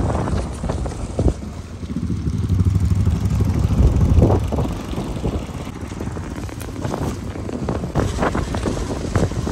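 Riding on a motorcycle: the low rumble of the engine under wind buffeting the microphone, with a few brief gusts along the way.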